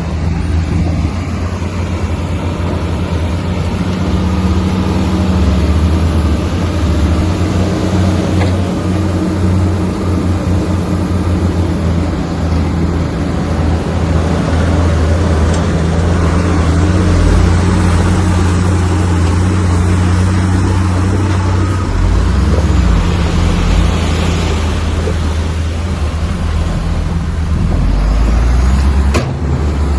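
Komatsu bulldozer's diesel engine running steadily, with a couple of sharp knocks near the end.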